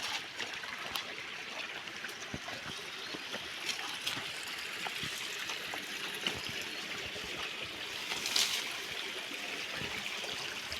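Shallow river water running and trickling over stones, a steady rushing, with a few small clicks and a brief louder swell about eight seconds in.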